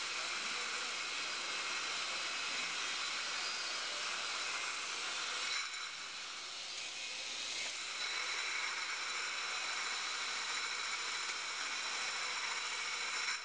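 Steady hissing noise of running factory machinery, with a few faint steady high tones, easing for about two seconds around six seconds in.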